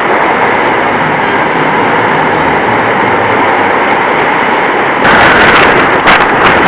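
Strong wind buffeting the microphone over the noise of a rough sea on the shore. It is loud and steady, then turns suddenly louder and harsher about five seconds in.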